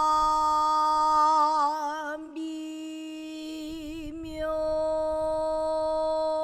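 A Korean traditional singer holding long sung notes with a wavering, shaking vibrato. The voice eases down about two seconds in and swells again about four and a half seconds in.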